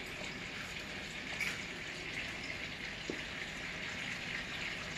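Steady sizzling hiss of butter melting in a pan on the stove, with the soft rustle of a gloved hand mixing brown sugar and cinnamon in a ceramic bowl.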